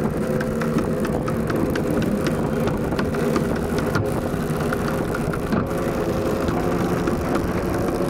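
An engine running at a steady speed: a low hum that holds an even pitch, with faint scattered ticks over it.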